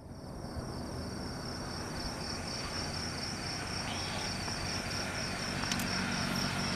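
Crickets chirping in a steady, even pulsing trill, over a low background hiss.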